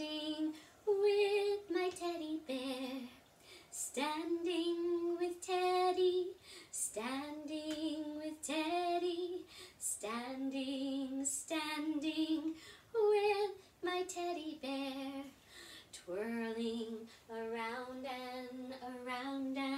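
A woman singing a children's song solo and unaccompanied, in short phrases with held notes and brief pauses between them.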